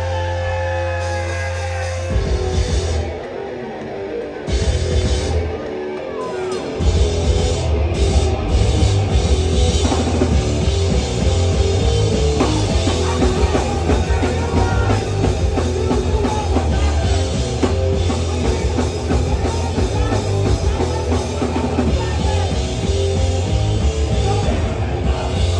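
Live hardcore punk band playing loud: distorted guitars, bass and drum kit. A held, ringing chord gives way about two seconds in to the full band crashing in, with a couple of brief stops before it settles into steady playing.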